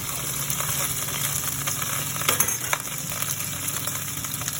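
Food sizzling as it fries in hot oil in a pan, with a few sharp clicks of a utensil against the pan about halfway through.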